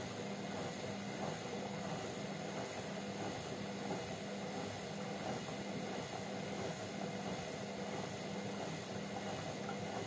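Hotpoint Ariston front-loading washing machine in its wash cycle: a steady motor hum as the drum tumbles the laundry through foamy water.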